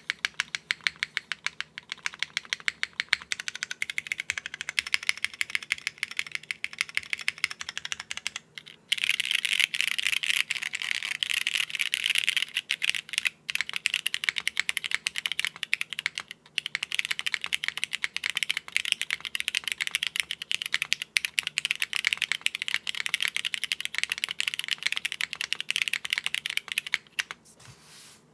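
Mechanical keyboard with lightly lubed Cherry MX Red Hyperglide linear switches, built plateless and without foam, being typed on. Evenly paced keystrokes for the first nine seconds or so, then fast continuous typing that stops just before the end.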